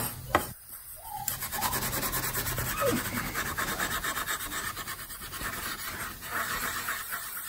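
Fast back-and-forth hand scrubbing of a pad against a rusty old chrome part. It starts about a second in and goes on steadily.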